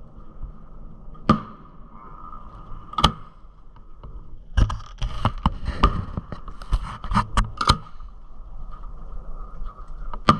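Aerial firework shells going off in sharp bangs: two single bangs a second and a half apart, then a quick volley of about a dozen bangs over some three seconds, and one more bang near the end, over a faint steady high tone.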